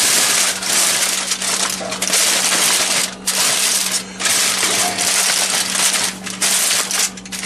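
Aluminium foil crinkling as hands crumple and press it into shape, in a run of bursts with brief pauses between.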